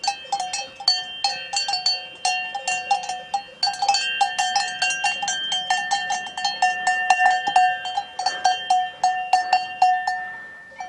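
Cowbells on grazing Braunvieh cattle clanking irregularly, several strikes a second, with more than one bell ringing at different pitches.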